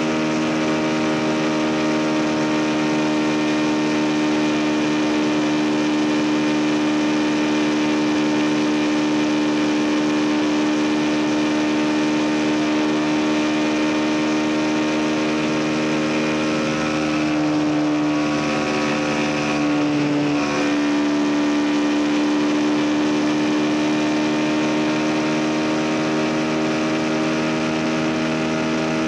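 CFMoto 250NK's single-cylinder four-stroke engine running at steady cruising revs. About two-thirds of the way through the revs waver and dip briefly with a short break, as in a gear change, then settle back to the same steady note.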